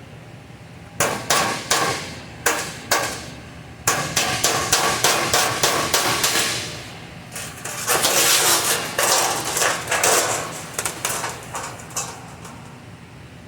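Hammer blows on sheet-metal HVAC ductwork with a metallic ring: a few separate strikes, then rapid runs of blows.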